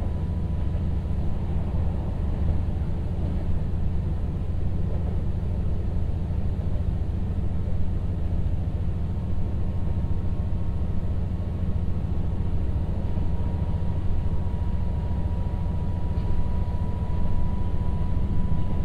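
Cabin noise of a KTR700 diesel railcar under way: a steady low engine drone and the rumble of the wheels on the track. In the second half a steady high tone grows louder as the railcar approaches a level crossing, the crossing's warning signal.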